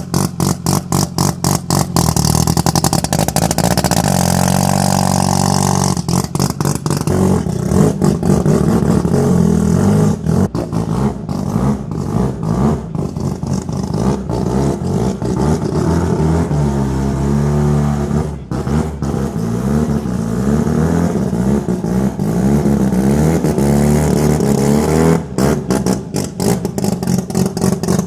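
Mazda RX-7's rotary engine revving hard through a burnout. It is held at high revs and repeatedly bounces off the rev limiter in long runs of rapid stuttering pulses.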